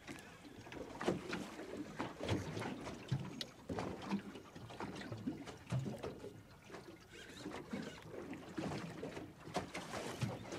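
Water slapping and lapping against the hull of a small boat drifting at sea, in irregular splashes.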